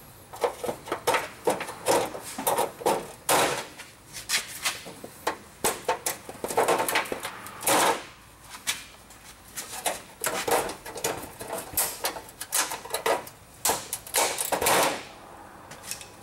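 Irregular metal clicking and scraping, with a few longer scrapes, as push-on fasteners are pried off an underbody heat shield with a hooked pry tool; it stops near the end.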